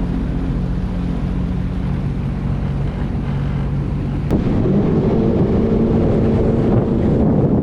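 Jet ski engine running steadily under wind noise on the microphone. About four seconds in, its pitch and loudness step up to a higher-revving run.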